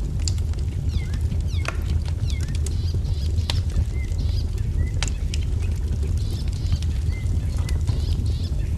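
Wood fire crackling, with scattered sharp pops over a steady low rumble, while small birds call with many short sweeping chirps.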